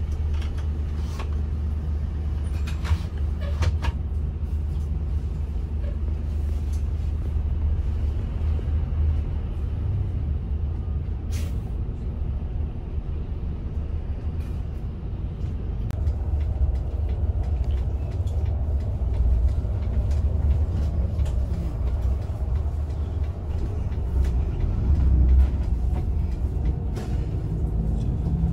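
Inside a Hino RM 280 coach under way: a steady low drone of engine and road noise through the cabin, with a few faint ticks and one brief sharp sound about eleven seconds in.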